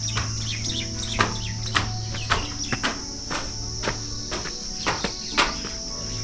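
Crickets calling in a steady, high-pitched, continuous chirring, with a number of sharp clicks scattered irregularly through it.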